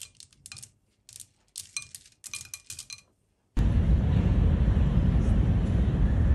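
Light, irregular clinks and taps on a porcelain bowl as chocolate cereal is dropped into yogurt. About three and a half seconds in, this cuts suddenly to the steady, louder low rumble of riding inside a moving vehicle.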